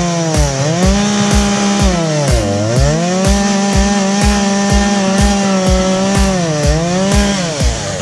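Gas chainsaw cutting through a tree trunk at high revs. Its engine note sags three times as the chain bites in and climbs back each time, then falls away near the end.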